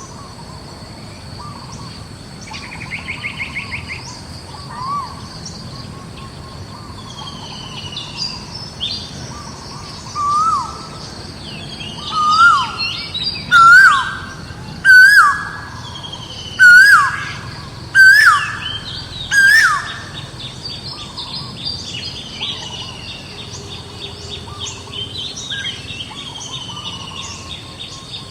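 Birds calling outdoors: one bird gives a loud series of about eight short calls, each rising and then dropping sharply, roughly one every second and a half in the middle of the stretch. Quieter chirps and a brief trill come from other birds, over a steady high insect drone.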